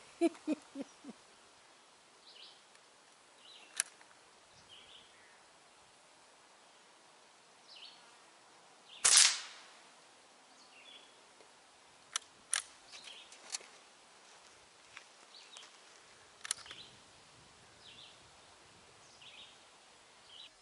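A single air rifle shot from a QB rifle about nine seconds in, a sharp crack with a short tail, followed a few seconds later by several sharp clicks.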